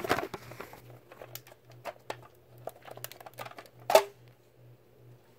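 Handling noise: light clicks and rustles of plastic Nerf blaster parts being moved about on carpet, with one sharper plastic clack about four seconds in.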